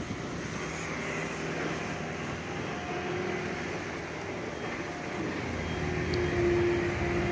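A steady motor hum with a faint held tone that grows slightly louder near the end.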